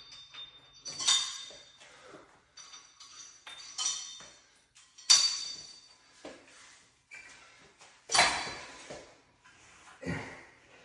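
Metal clinks and clanks from a cable machine's hardware being handled: sharp separate strikes, some with a short ringing tone, the loudest about five and eight seconds in.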